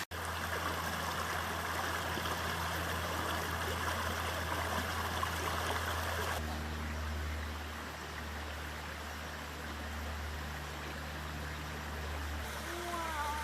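Rain-swollen creek flowing steadily, an even rush of water, with a brief break right at the start and a change in its sound about six seconds in.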